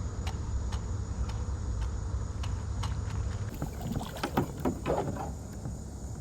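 Low wind rumble on the microphone with faint scattered ticks. From about halfway there is irregular splashing and sloshing water as an arrow-shot fish is hauled up to the kayak.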